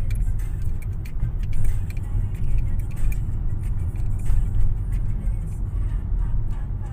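Steady low rumble of a moving car heard from inside the cabin: engine and tyre road noise.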